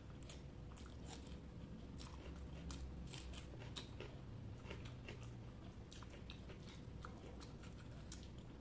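Close-up chewing and mouth sounds of a person eating rice with egg curry and mashed brinjal: many soft, wet clicks and smacks at an irregular pace.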